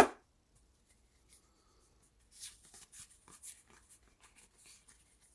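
A sharp knock at the very start, then from about two seconds in, Pokémon trading cards rustling and sliding against each other as they are handled and flipped through.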